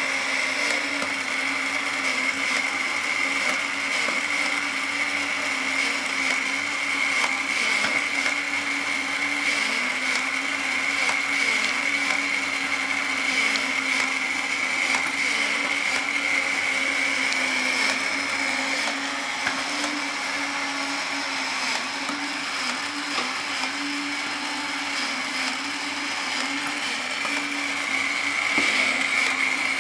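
Small electric motors and gear trains of battery-operated antique figure toys whirring steadily, with a constant high whine over a lower hum.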